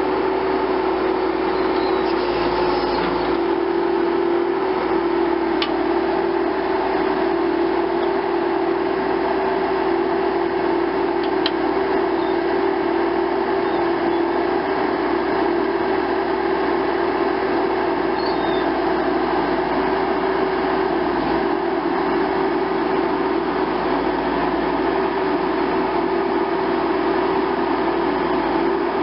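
A tree-spade machine's engine and hydraulics running steadily while it digs a tree, a constant drone with a strong mid-pitched hum held through it.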